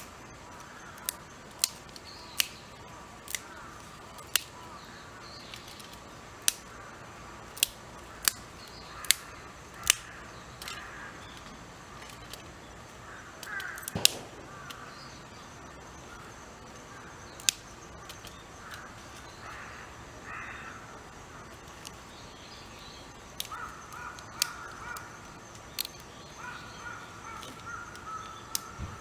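A series of sharp, irregular snaps or clicks, about one every second or so, with crows cawing now and then.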